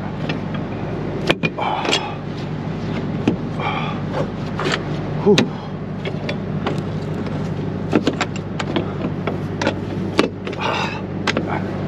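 Metal clanks and clicks of a semi-trailer's rear-door lock rods and latch handles being worked to close and lock stiff, tightly sealed doors, over a steady low engine hum.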